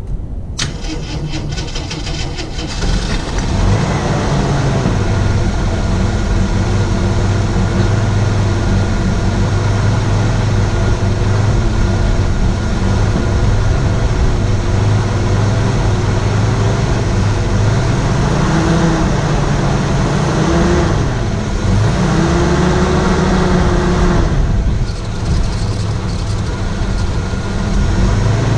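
1981 Jeep CJ7 engine cranking briefly, catching about three seconds in, then running steadily. Near the end it is blipped up and down a few times.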